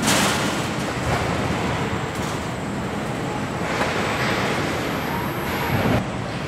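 Truck assembly-line machinery and conveyors carrying pickup cab bodies, running with a steady rumbling clatter. A sudden hiss comes at the start, and another runs for a couple of seconds about halfway through.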